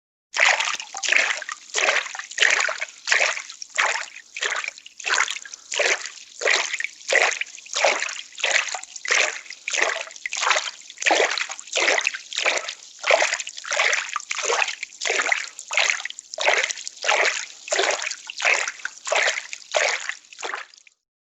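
Water splashing in a steady rhythm, about three splashes every two seconds, starting and stopping abruptly.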